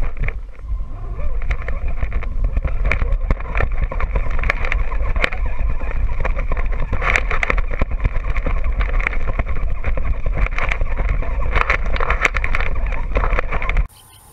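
Onboard sound of a scale RC rock crawler driving over dry brush and dirt: its electric drivetrain whining, over a heavy low rumble and many clicks and knocks as the chassis rattles over the rough ground. It cuts off suddenly near the end to a much quieter background.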